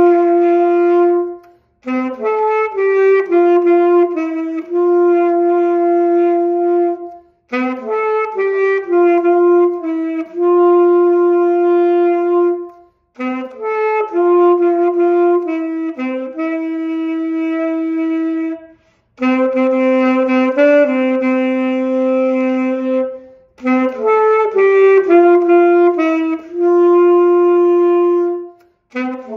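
A saxophone played solo: a slow melody in phrases of four to six seconds, each ending on a long held note, with short breaks between phrases.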